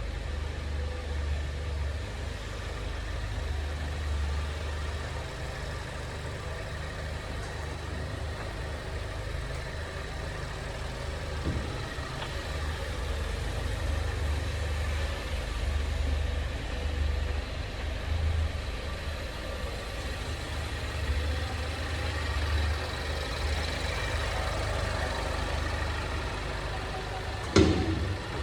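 2020 Ford Mondeo wagon running with a steady low rumble, broken by a sharp knock from the chassis twice: a light one about eleven seconds in and a much louder one near the end. It is the abnormal underbody noise the new car has developed.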